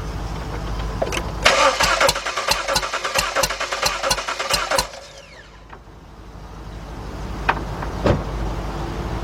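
The starter cranks a 2003 Jeep Liberty's 3.7 V6 for about three seconds, with an even pulsing of about three beats a second, then stops without the engine firing. This is the cranking for a compression test on one cylinder, which reads about 120.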